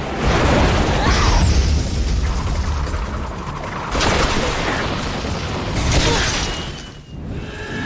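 Anime action-scene sound effects: heavy booms and crashes that surge again about four and six seconds in, with music faintly underneath.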